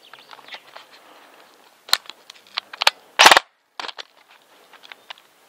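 Airsoft electric gun, an ASG Scorpion EVO, firing on full auto: a few sharp single cracks from about two seconds in, then a loud rapid burst about three seconds in and a shorter burst near four seconds.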